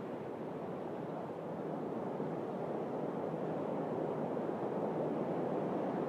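Steady wash of sea waves, growing a little louder about two seconds in.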